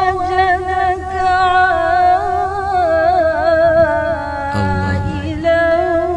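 Female voices chanting Quran recitation in the melodic tarannum style: a long, ornamented, wavering held note, drawn out over a verse ending. There is a short breath about four and a half seconds in before the note carries on.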